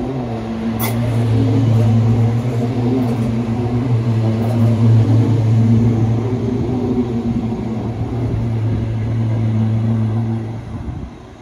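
Appenzeller Bahnen Stadler Tina electric railcar passing slowly close by, giving a loud, steady low electric hum over the rumble of its wheels on the rails, with a sharp click about a second in. The hum stops shortly before the end as the railcar moves away.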